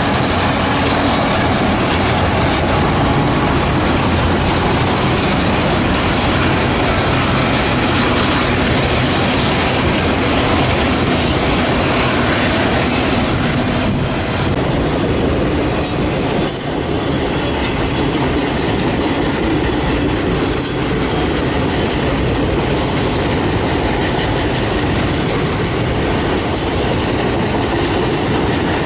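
Loud freight train cars rolling past: a steady roar and rattle of steel wheels on the rails, with short sharp clicks and squeaks from the wheels in the second half.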